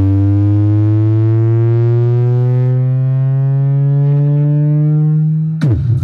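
Car-audio woofers in a trailer-mounted box playing a loud bass test tone that rises slowly and steadily in pitch. About five and a half seconds in it cuts off suddenly and loud bass-heavy music starts.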